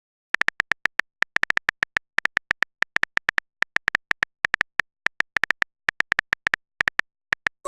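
Phone keyboard typing sound effect: a long run of short, high clicks, about six a second in uneven clusters, as a message is typed out.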